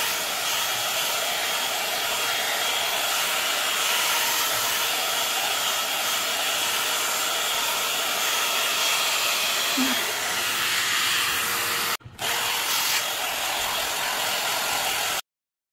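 3-in-1 hot air brush running, its fan blowing a steady rush of air with a faint motor whine beneath. The sound drops out for a moment about twelve seconds in and cuts off abruptly shortly before the end.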